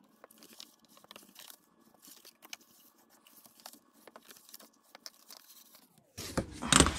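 Black cardstock being folded along its score lines and burnished with a plastic bone folder: faint, scattered rubs and crinkles of paper, getting louder with paper handling near the end.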